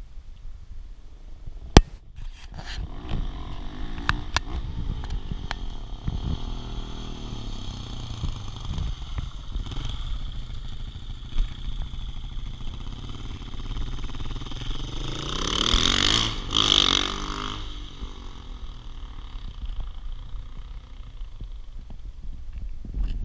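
KTM 690 SMC R's single-cylinder engine running through an SC Project exhaust, its pitch rising and falling as it swells and fades, loudest about two thirds of the way through. A single sharp click about two seconds in.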